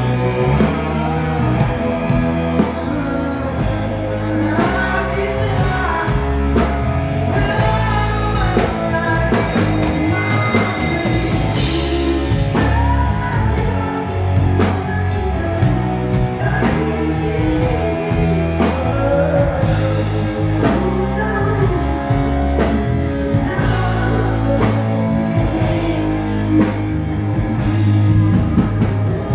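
Live rock band playing with a lead singer: drum kit hits, electric guitar and singing.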